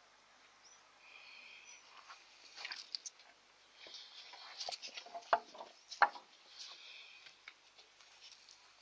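Bull chewing and biting bananas, with scattered crunches and clicks. Two louder sharp knocks come about five and six seconds in.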